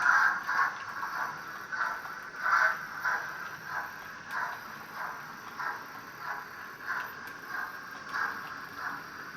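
Model steam locomotive's DCC sound decoder playing a regular steam exhaust beat, about two chuffs a second, through its small onboard speaker.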